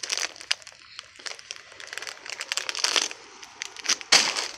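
Crinkling of a plastic chip bag being handled, an irregular run of crackles with one louder, longer rustle a little after four seconds in.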